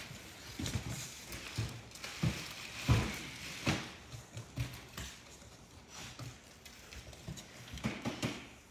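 Cardboard boxes being handled and opened: flaps scraping and rustling, with irregular knocks and thumps, the loudest about three seconds in and again just before four seconds.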